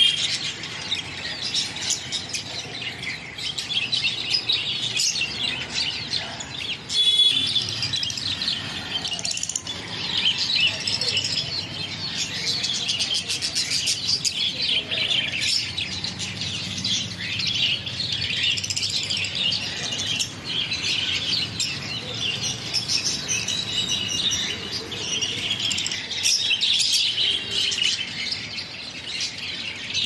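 Many small caged birds chirping at once, a dense, continuous high-pitched chatter, with a brief louder burst about a quarter of the way in.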